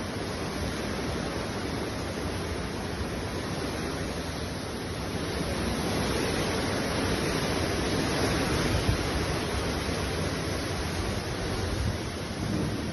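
Hurricane wind and rain: a steady rushing noise with no pitch, growing louder about halfway through.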